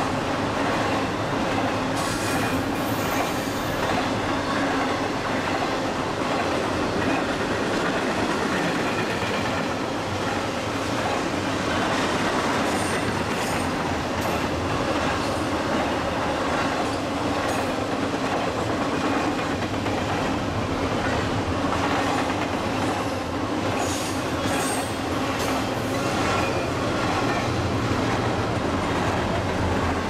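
Intermodal freight train of truck trailers on flatcars rolling past: a steady rumble and clatter of steel wheels on rail, with a few brief high wheel squeals here and there.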